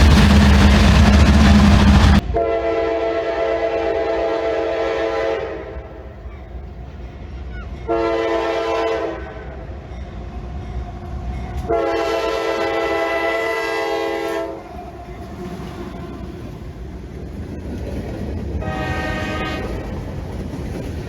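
A loud low rumble of a train for about two seconds, then a multi-chime locomotive air horn sounding four blasts: long, short, long, and a fainter short one near the end, over the train's running noise.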